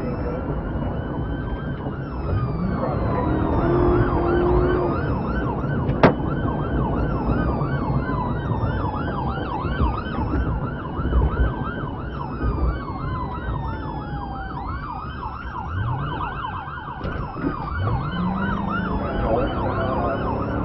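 Police car siren switching between a slow rising-and-falling wail and a rapid yelp during a pursuit, over the patrol car's engine, which revs up several times. A single sharp click comes about six seconds in.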